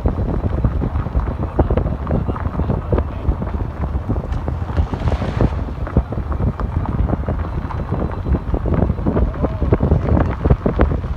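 Car driving over a rough dirt track: a steady low rumble with many short knocks and rattles, and wind buffeting the microphone.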